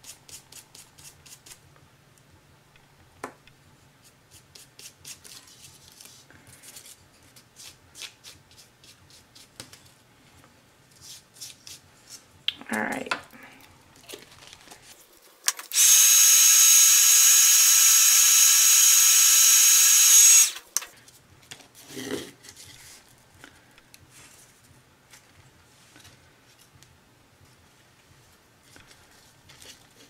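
Handheld craft heat gun switched on for about five seconds near the middle: a loud, steady fan rush with a thin high whine, then cut off, used to dry freshly brushed yellow acrylic paint on corrugated cardboard. Before it, faint brush scratches on the cardboard, with a couple of handling knocks as the tool is picked up and set down.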